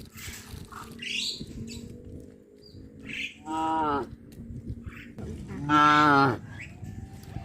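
Cows mooing: two calls, a shorter one about three and a half seconds in and a longer, louder one about five seconds in that drops in pitch as it ends.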